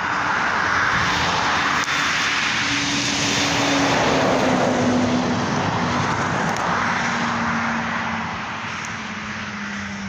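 A vehicle going past: a steady rushing noise with a low engine hum that swells to its loudest about halfway through, then fades, the hum sinking slowly in pitch.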